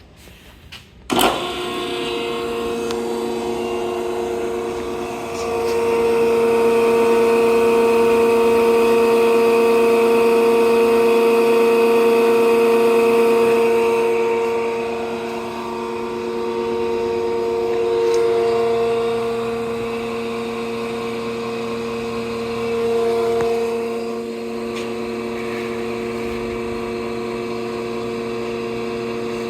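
Air Systems TA-3 Twin Air breathing air compressor switched on about a second in, then running with a steady pitched hum. It runs louder for about eight seconds in the middle, then settles back to a steady level.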